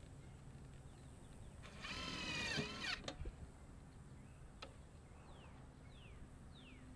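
Cordless drill driving a screw into a stove vent's base flashing on a tile roof: one burst of motor whine about two seconds in, lasting about a second, its pitch dropping as the screw seats. A couple of sharp clicks follow.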